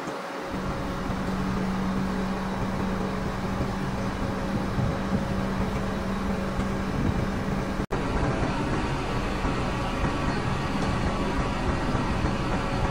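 Grove TM1500 truck crane running steadily, its engine and hydraulics making a continuous mechanical drone with a low hum. The sound drops out for an instant a little past halfway.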